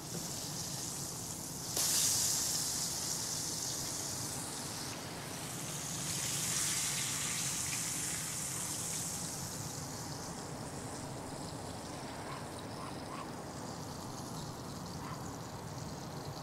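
Vegetable oil sizzling in a cast iron skillet as a piece of breaded rockfish fries. The sizzle flares suddenly louder about two seconds in and swells again from about six to nine seconds, as the piece is worked with a spatula.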